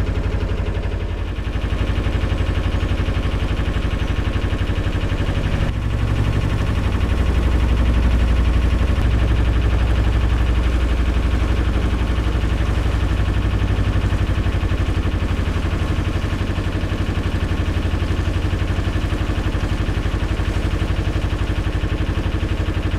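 Narrowboat's diesel engine running steadily at cruising speed with an even, rapid beat, a little louder for a few seconds from about six seconds in.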